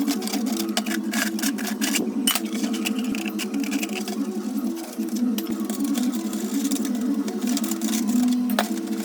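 Background music with a busy, even rhythm and a stepping melody, with sharp clicks and taps over it, the clearest a little over two seconds in and near the end.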